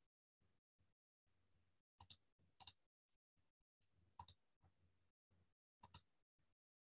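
Computer mouse button clicked four times, each click a quick press-and-release pair, against near silence.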